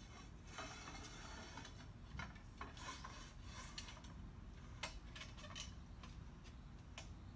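Metal tubing being shifted in a milling-machine vise: soft scraping in the first second or so, then scattered light clicks and taps of metal on metal.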